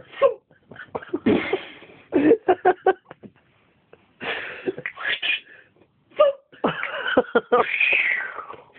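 A man imitating gunfire with his mouth: spitting, popping bursts and clicks in quick runs, ending in a longer burst that falls away in pitch near the end.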